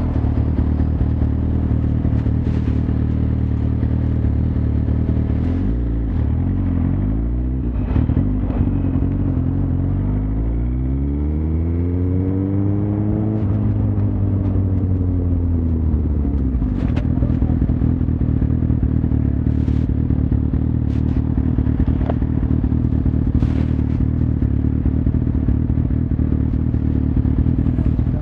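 Suzuki GSX-R1000 inline-four engine running steadily. Its pitch swings up and down briefly, then about a third of the way in the revs climb smoothly and fall back over several seconds.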